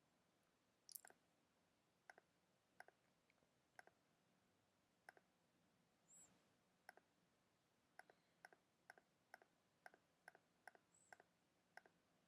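Faint computer mouse button clicks, single and in quick pairs, as edges are picked one by one in 3D modelling software. The clicks are sparse at first and come faster in the second half.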